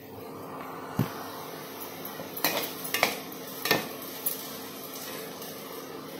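Metal kitchen utensils and pots clanking four or five times, sharp knocks about a second apart, over a steady hiss.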